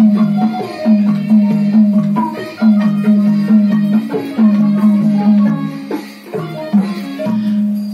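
Burmese traditional ensemble music of tuned drums and percussion, the drums playing a quick run of pitched strokes, some notes sliding down in pitch.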